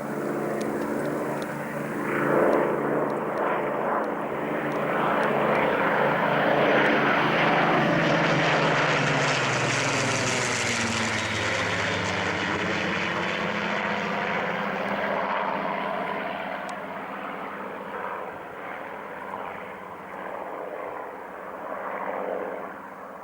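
A Supermarine Spitfire and a Hawker Hurricane flying past low with their piston engines running. The engine note builds to its loudest about ten seconds in, then drops in pitch as the aircraft pass and slowly fades away.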